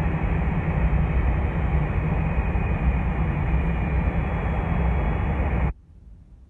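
Loud, steady cabin noise of a Boeing 747-400 jetliner, its jet engines and rushing air, with a deep rumble underneath. It cuts off suddenly near the end.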